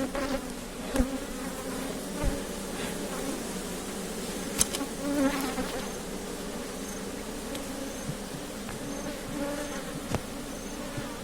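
A colony of honey bees buzzing steadily around an opened hive, with a few short wooden knocks as the honey super is lifted and handled.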